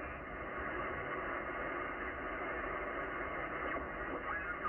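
Hiss and band noise from a Yaesu FTdx10 transceiver in upper-sideband mode as its dial is tuned across the 10-metre amateur band. The hiss is steady and stops sharply above about 3 kHz, the width of the sideband filter. Near the end a brief tone glides past as a signal is tuned through.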